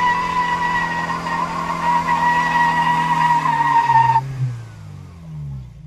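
Car doing a burnout: the engine is held at steady high revs while the spinning tyres squeal in one steady high tone. About four seconds in, the squeal stops abruptly and the engine revs fall away.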